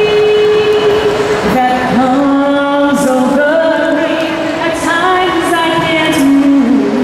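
A young woman singing a ballad into a handheld microphone, holding long notes that step down and up between pitches.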